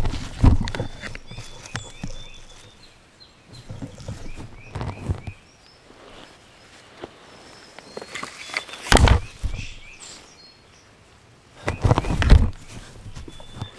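Songbirds chirping in short, repeated high notes. Loud bursts of rustling, rumbling noise come four times, the strongest near the end, typical of footsteps or the microphone being handled.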